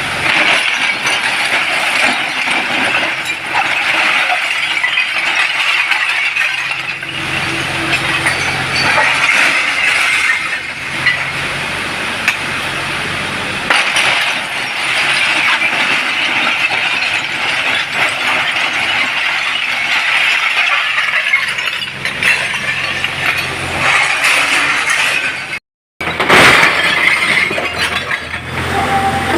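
Heavy earthmoving machine working granite rock: a dense clatter and scrape of stone and steel over a steady diesel engine running underneath. The sound cuts out briefly near the end.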